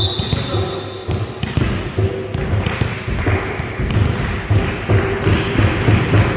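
A referee's whistle blows once at the start, a single held note lasting about a second. After it a low beat repeats about three times a second, with a few sharp knocks scattered among it.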